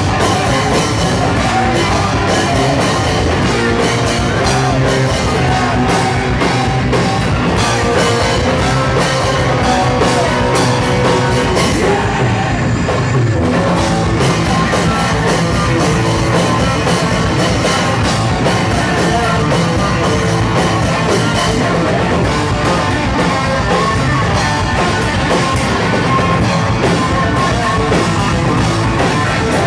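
Hardcore punk band playing live: fast, loud drums, electric guitars and bass, with vocals. The cymbals drop out briefly about twelve seconds in.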